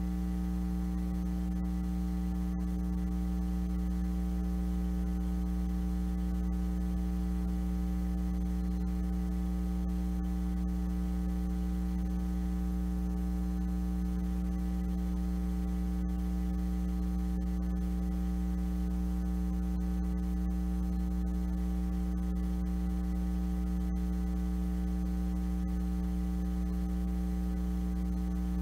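Steady electrical mains hum on the audio line: a constant low buzz with many evenly spaced overtones and nothing else.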